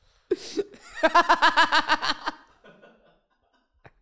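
A man laughing into a close microphone: a short laugh, then a run of quick rapid ha-ha pulses lasting about a second and a half, which trails off to quiet.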